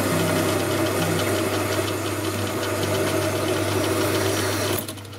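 Metal lathe running steadily with a low hum while a tailstock drill bores into a metal ring held in the chuck. It falls much quieter near the end.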